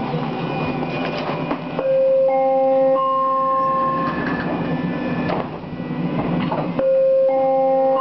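SkyTrain Mark I car's door chime: three rising tones that come in one after another and hold together as a chord, the warning that the doors are closing. It sounds about two seconds in and again near the end, over the steady hum of the car standing at the platform.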